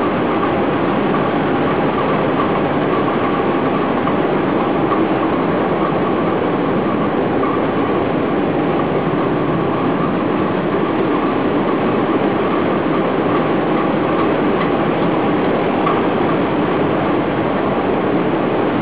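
Two SEMT Pielstick 16 PC 2.6 medium-speed marine diesel main engines running in a ship's engine room: a loud, steady mechanical din that doesn't change.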